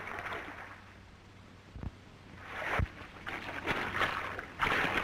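Water splashing fades to a quiet lull. From about halfway, clothes are scrubbed in repeated strokes against a washboard in a washtub.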